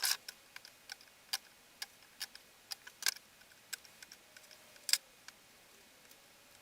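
Irregular light clicks and taps, about fifteen in all, the loudest right at the start and another about five seconds in.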